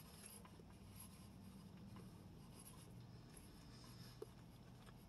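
Near silence: faint room tone with a low steady hum and one small click about four seconds in.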